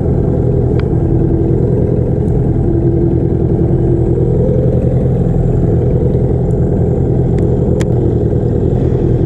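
A small boat's motor running steadily at low speed, an even hum with no change in pitch, with a few faint clicks.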